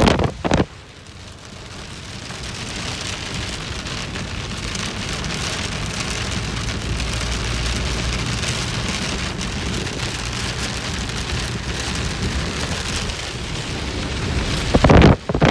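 Heavy rain beating on a moving car's roof and glass, heard from inside the cabin, with low road rumble underneath. The rain builds over the first few seconds and then holds steady. A loud burst comes right at the start and again near the end.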